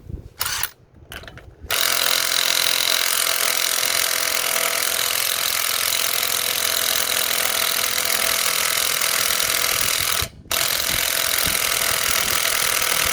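Metabo HPT 18V impact driver, on its original 18 V battery, hammering continuously to break loose a lug nut torqued to 150 foot-pounds. After a short trigger blip it runs steadily for about eight and a half seconds, stops for a moment, then hammers on again for about three more.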